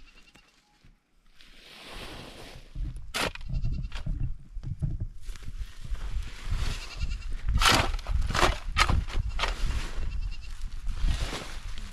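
Goats bleating again and again, several short cries overlapping, starting about two seconds in after a quiet moment, over a low rumble like wind on the microphone.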